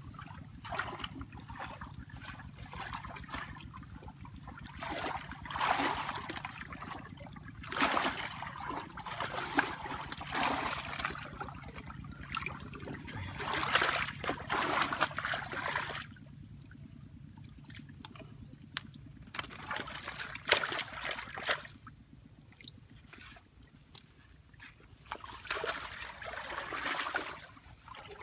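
Hands and arms splashing and sloshing through shallow muddy water while groping for fish in the mud. The splashes come in irregular bursts, with a quieter stretch of a few seconds past the middle.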